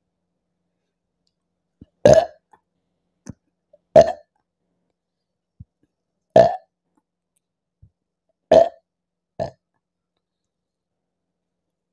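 A woman burping five times, about two seconds apart, the last a shorter burp just after the fourth. The burps come from the gas of a litre of fizzy Appy Fizz apple drink.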